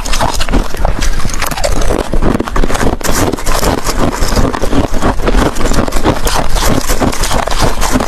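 Ice cubes being bitten and chewed close to the microphone: a loud, dense run of sharp cracking crunches with no pauses.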